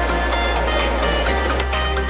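Background music with sustained bass notes that change pitch partway through, over a light steady beat.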